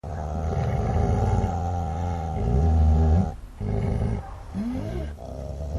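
Dogs growling and snarling: a low, continuous growl that breaks off briefly about three and a half seconds in, then resumes with higher snarling sweeps in pitch.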